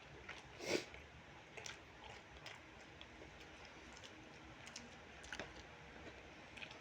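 Close-miked chewing of fried rice with chicken gizzard and liver: soft wet mouth clicks and smacks, with one louder one about three quarters of a second in.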